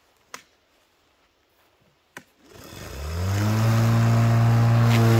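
Stihl RMA 235 cordless lawn mower: two sharp clicks, then its electric motor and blade spin up with a rising whine and settle into a steady hum.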